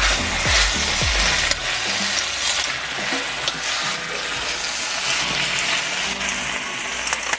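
Beef strips, onion and green onion sizzling as they are stir-fried in a stainless steel wok, with metal tongs clicking and scraping against the pan. Background music with a steady beat plays under it for the first second and a half.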